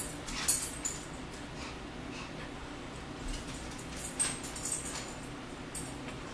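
Close-up eating sounds: scattered wet smacks and clicks of chewing, a few at a time, over a faint steady low hum.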